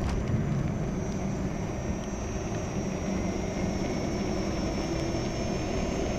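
Steady wind rush and rumble on the microphone while riding a Gotway MCM4 electric unicycle, with a faint steady high whine above it.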